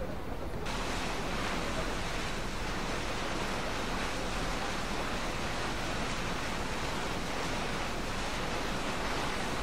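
Steady rushing of wind and water on the deck of a moving lake cruise ship, cutting in suddenly about half a second in over a low steady rumble.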